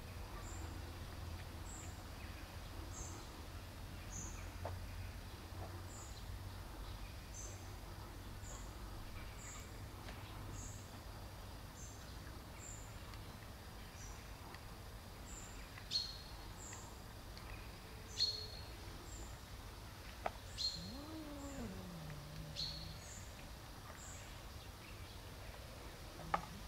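Small birds chirping: short high chirps repeating about once a second, with louder sharp calls from past the middle. A cat gives one low, drawn-out meow that rises then falls, a little past two-thirds of the way through, over a steady low hum.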